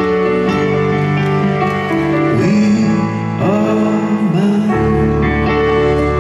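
Live piano ballad: grand piano chords over held backing notes, with a wavering melody line sliding up and down in pitch about halfway through.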